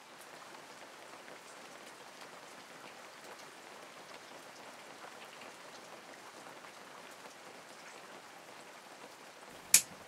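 Rain falling steadily, an even hiss without pauses, with one sharp click near the end.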